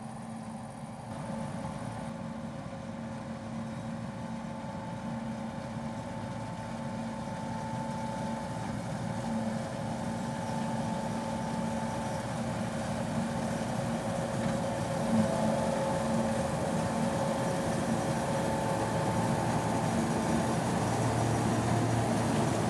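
John Deere 1470 combine harvester running under load while threshing wheat: a steady mechanical hum with several held tones, growing louder as the machine comes closer.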